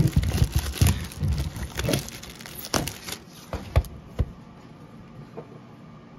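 Plastic shrink wrap crinkling and tearing as a sealed trading-card hobby box is unwrapped, with the cardboard box knocking in gloved hands. It stops about four seconds in after a couple of sharp knocks as the box is set down, leaving a low steady hiss.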